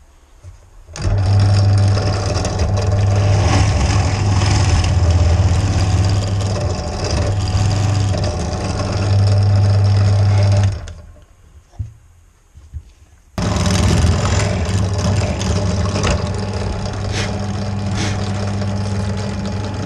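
Electric drill running under load in two long runs, about ten seconds and then about six, with a short pause between: boring hinge holes in a cabinet door.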